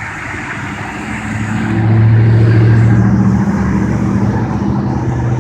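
Motor vehicle engine in freeway traffic, a steady low hum over road noise that swells about two seconds in and then holds.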